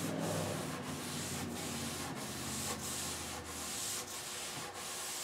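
Cloth rag rubbed over an oil-wet teak-veneer desktop in steady back-and-forth strokes, a little under two a second, wiping off the excess tung oil after it has soaked in.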